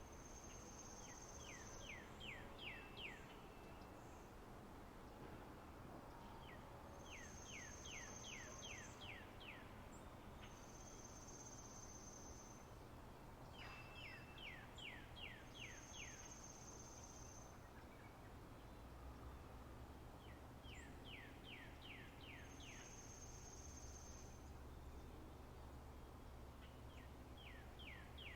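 Spring meadow nature ambience: a songbird repeating quick phrases of six to eight falling whistled notes, alternating every few seconds with a high, steady buzzing trill, over a faint low hum.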